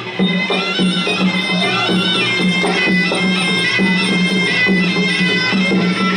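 Traditional Khmer boxing ring music: a sralai, a reed oboe, playing a winding melody over a repeating low drum beat.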